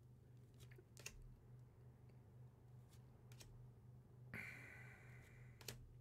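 Near silence: faint clicks and a soft rustle of cardboard trading-card code cards being slid off the front of a hand-held stack, over a low steady hum.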